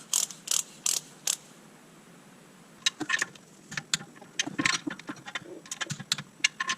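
Torque wrench ratcheting in short strokes on clutch pressure plate nuts being torqued to 25 foot-pounds: four evenly spaced clicks, a pause, then a run of quicker clicks and small metal rattles as the wrench moves on.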